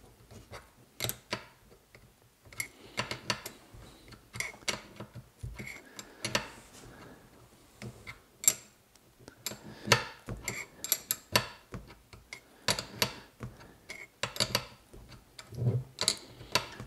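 Irregular metallic clicks and clinks of an 11 mm ring spanner being fitted onto a nut and turned to tighten it.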